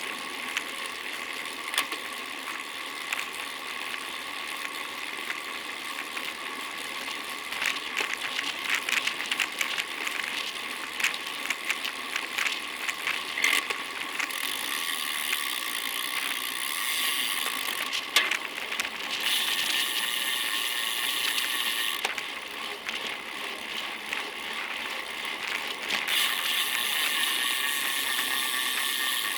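Bicycle freewheel hub ticking rapidly as the rider coasts, with rattling clicks and a steady hum. In the later part there are stretches of rushing wind and road noise.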